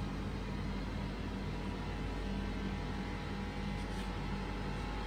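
Steady machine hum with a low drone and an even hiss, the background noise of a working kitchen.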